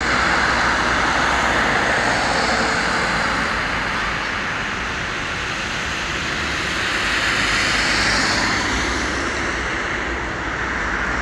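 Road traffic: the steady hiss of car tyres and engines as a van passes at the start. It eases off, then swells again about eight seconds in as more traffic goes by.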